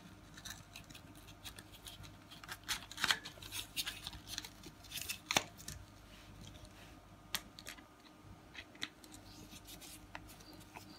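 Scattered small clicks and taps of plastic and metal stroller front-wheel parts being handled: the axle and its screw being fitted back through the wheel and fork, with a screwdriver set into the axle near the end. The sharpest clicks come about three and five seconds in.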